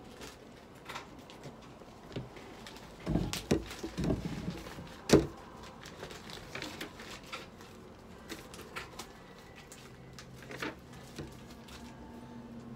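Handling noises of a cat being held on a metal exam table: scattered knocks, taps and rustles, with a cluster of thumps about three to four seconds in and one sharp knock about five seconds in.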